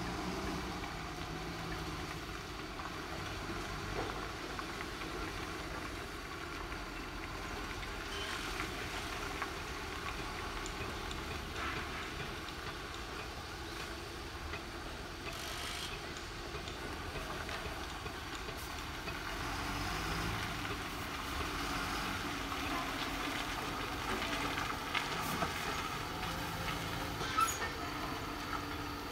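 Steady engine and machinery noise from a construction site, with a couple of short sharp knocks. The loudest knock comes near the end.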